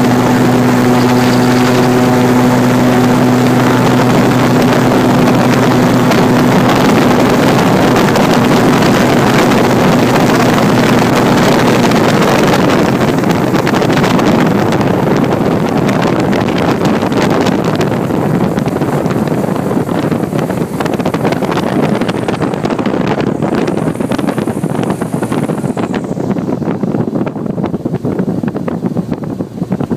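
Airboat's engine and air propeller running under way, with wind on the microphone. A steady engine drone for the first dozen seconds gives way to a rushing noise, and the sound eases off over the last ten seconds.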